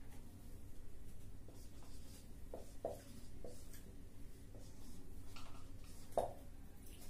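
Marker pen scratching and squeaking on a whiteboard in short strokes while zigzag resistor symbols are drawn, with a louder stroke about six seconds in. A low steady hum underneath.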